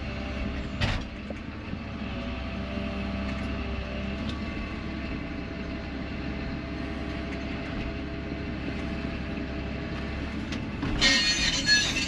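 Excavator's diesel engine running steadily, heard inside its cab, with a brief knock about a second in. About eleven seconds in, a loud high-pitched metallic squealing and scraping starts.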